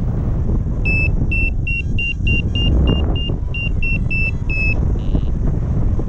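Paragliding variometer beeping in a quick, steady run of about thirteen short high beeps, roughly three a second, the sign that the glider is climbing in lift. Loud wind rushes over the microphone throughout.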